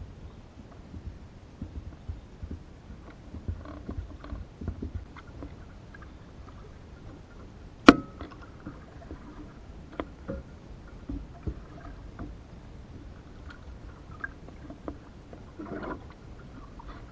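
Canoe being paddled through calm water: paddle strokes and drips with scattered light taps on the hull, and one sharp knock about eight seconds in.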